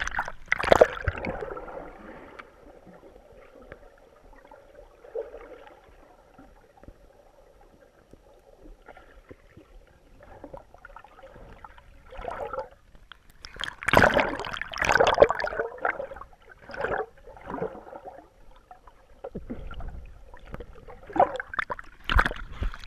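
Water sloshing and splashing in irregular surges, the loudest a little past the middle.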